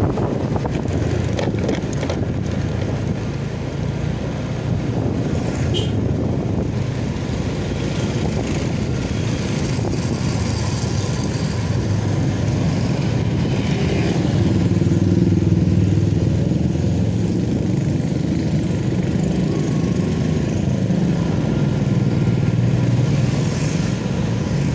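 Motor scooter engine running steadily while riding, with wind and road noise and other motorcycles around; it grows a little louder a little past halfway.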